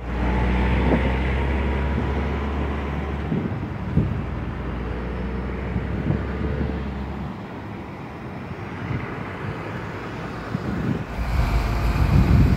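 A car engine running, with wind rumbling on the phone's microphone. The rumble grows louder near the end as a car drives up across the grass.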